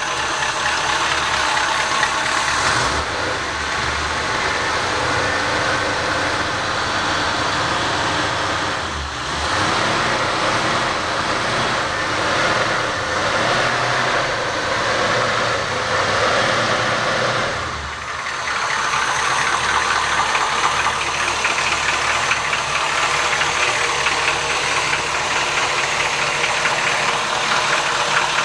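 1973 Cadillac 472 V8 running cold with a rhythmic knocking slap from the pistons: piston slap, which the owner says disappears once the engine warms up.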